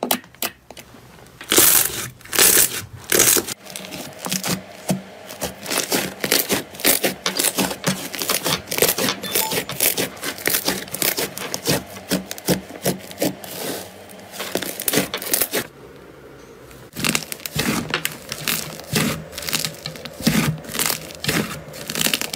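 Hands squeezing, poking and pressing slime, making a dense, irregular run of crackles, clicks and sharp pops as trapped air pockets burst, with a short lull about two thirds through.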